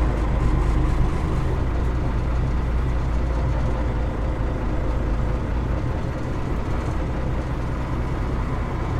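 Alvis Stalwart Mk1 amphibious truck's engine running steadily under load as the six-wheeler reverses down into the water, heard from inside its cab.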